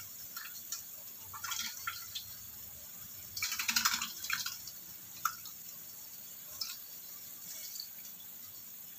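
Sauce simmering around chicken feet in a wok: scattered bubbling pops and small spits over a faint hiss, with a denser run of popping about three and a half seconds in.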